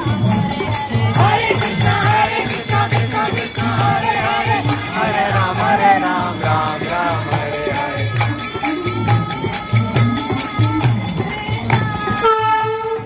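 Devotional sankirtan: voices singing a chant over jingling hand cymbals and a steady low beat, about two beats a second.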